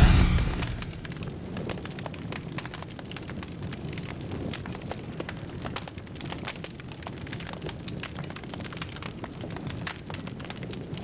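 A fire flaring up with a sudden loud burst that fades over about a second, then the steady crackle of burning wood with many small pops.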